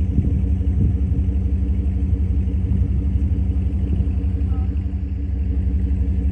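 A vehicle's engine idling steadily: a low, even rumble that does not change.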